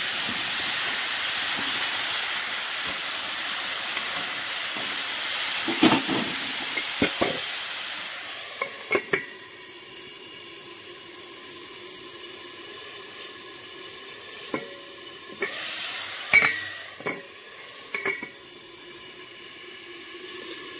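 Potato sticks frying in hot oil in a metal kadai: a steady sizzle that drops to a quieter hiss after about eight seconds. Sharp metal clinks and knocks of a utensil against the pan come several times, mostly in the second half.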